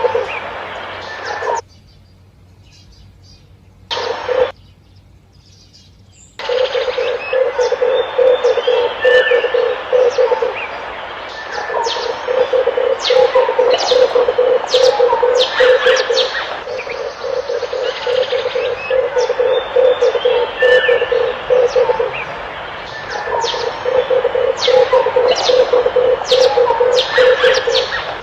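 Red collared doves cooing in rapid rolling purrs, repeated in runs of a few seconds, with many short high chirps over them. The sound drops out twice near the start.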